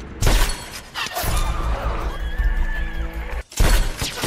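Dramatic film music with sudden loud hits, then a loud sniper rifle shot near the end.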